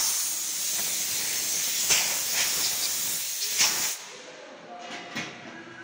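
Compressed air hissing from a Holemaster CNC drilling machine's pneumatics, starting suddenly and cutting off about four seconds in, with a few short knocks during the hiss.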